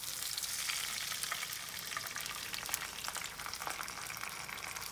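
Water poured into a pan of hot oil with fried mustard seeds, curry leaves and green chillies: a sudden hissing sizzle starts, full of fine crackles, and keeps going steadily.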